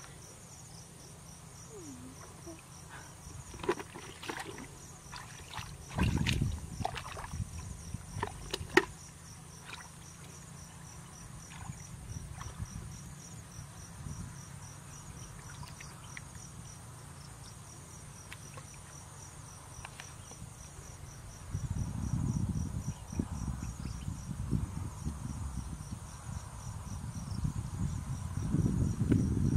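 Insects trilling steadily in a fast, even pulse. Over it come a few sharp splashes and slaps of hands in shallow muddy water, and from about three quarters through, a low churning slosh of legs and hands working through mud and water.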